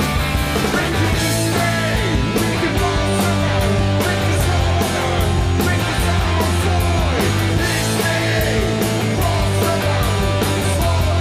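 Live rock band playing loud: electric guitars, bass and drums, with a male singer's voice over them.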